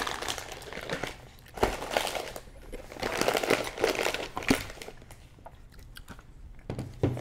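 Plastic and cellophane snack wrappers crinkling as packaged chocolates are handled and packed into a wooden chest, with sharp knocks about one and a half seconds in and again about four and a half seconds in.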